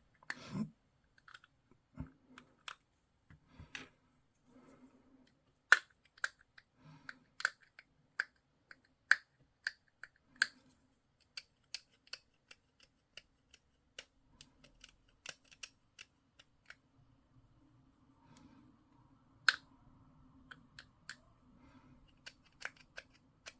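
Scattered, irregular sharp clicks and snips of hobby tools working a plastic miniature's parts while a mould line is cleaned up, a few of them much louder than the rest.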